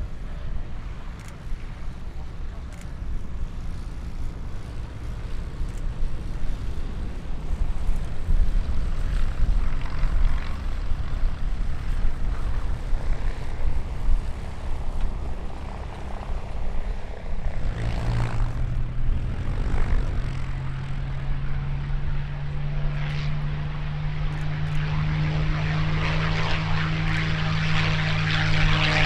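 Propeller aircraft's piston engine droning over a low rumble. The steady pitched drone sets in about halfway through and grows louder toward the end as the aircraft approaches.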